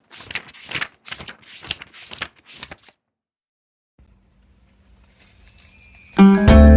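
Irregular rustling noises for about three seconds, then a second of silence, then jingly background music with bell tones starting loudly near the end.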